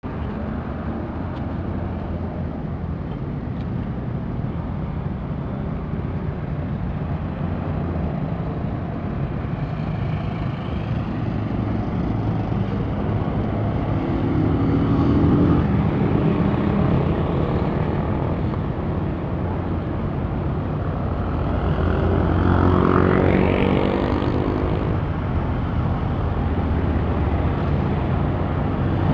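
Motor traffic with a vehicle engine running steadily, growing louder in the middle; about two-thirds of the way through one engine rises sharply in pitch as it accelerates.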